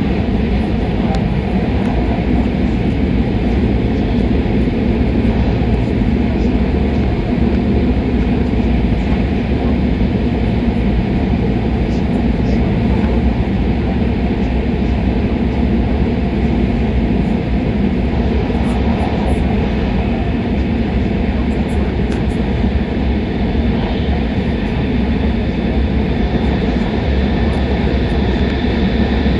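Shinkansen bullet train running at speed, heard from inside the passenger cabin: a steady, even rumble and rush of running noise.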